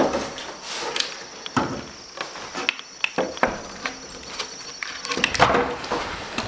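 A door knocking shut, followed by footsteps and scattered knocks and scrapes of moving around a room, busiest near the end.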